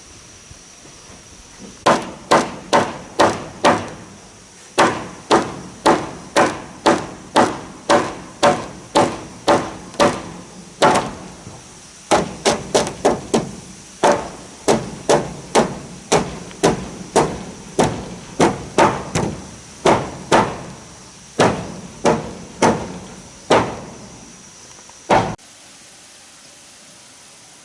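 Hammer blows striking wood, about two a second in runs with short pauses, each blow ringing briefly.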